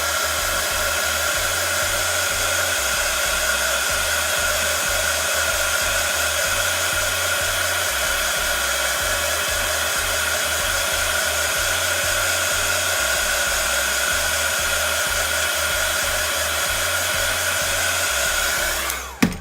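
Hot-air blower running steadily with a constant whine, heating the back plate of an iPhone 6s screen to soften its adhesive before it is lifted off. It switches off abruptly near the end.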